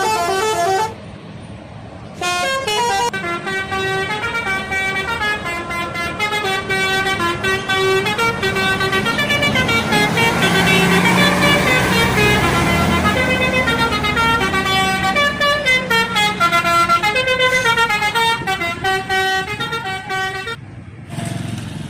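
Bus telolet horn, a multi-tone musical air horn, playing a long run of stepping melodic notes after a short first burst. Bus engine and road noise swell up under the tune in the middle as the bus passes close.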